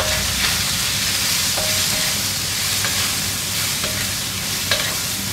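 Sliced hare and red onion sizzling in a hot cast iron wok over a gas flame, stirred and tossed continuously, with a utensil scraping and clicking against the pan a few times.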